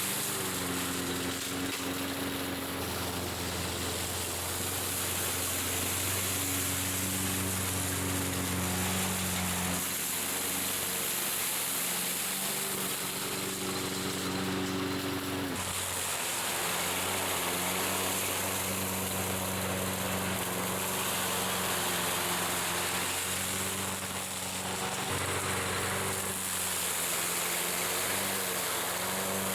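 Walk-behind gas lawn mower running steadily, fitted with a Big Leaf Bag catcher to bag leaves. Its engine note shifts pitch a few times, around ten seconds in and again around sixteen and twenty-five seconds.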